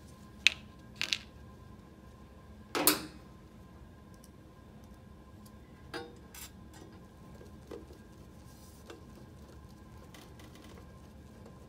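Small metal clinks and ticks of screws and a screwdriver against a stainless-steel print-head housing while its side cover is screwed back on, with a louder metallic clatter about three seconds in. Lighter ticks follow as a Phillips screwdriver turns screws into the cover.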